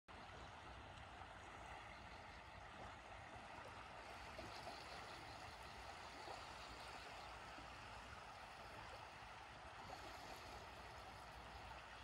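Faint, steady wash of small waves lapping onto a sandy sea shore in calm water, with a low rumble beneath.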